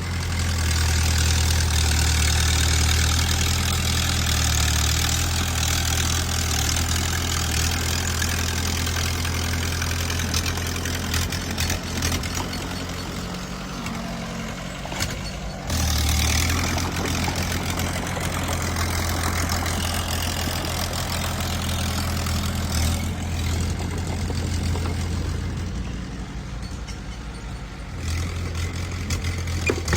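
Diesel engine of heavy earthmoving machinery running steadily with a strong low hum. It eases off a little in the middle and picks up again about halfway through.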